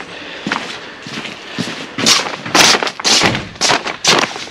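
Footsteps on plastic damp-proof membrane sheeting, rustling with each step, about one step every half second.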